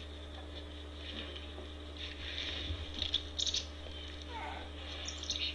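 Footsteps crunching on crusty snow, an uneven run of short crunches, over a steady low hum.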